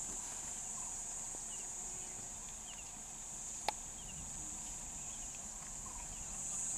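Steady high-pitched drone of insects, with a few faint bird chirps and a single sharp click a little past halfway.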